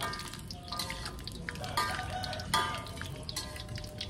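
Metal spatula and ladle clinking and scraping against a wok while stirring food as it fries, each stroke giving a short ringing clink, roughly one or two a second, over a frying hiss.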